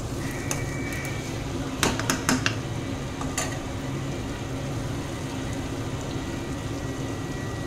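A steel spoon stirring curry in an aluminium kadhai, then clinking against the pan several times about two to three and a half seconds in. A steady hiss continues underneath.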